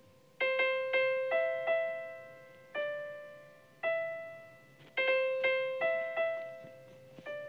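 Background music: soft keyboard chords, each struck and left to fade.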